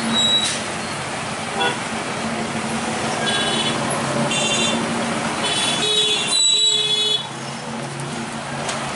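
Road traffic passing with a steady engine hum, broken by several short horn toots, the longest about six to seven seconds in.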